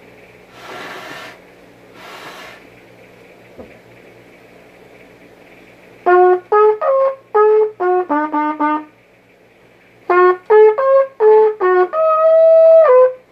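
Trumpet played solo: two phrases of short, separated notes, the second ending on a held note. It is the high part of a two-trumpet duet played without the second trumpet. Before the playing, two brief rushes of breath.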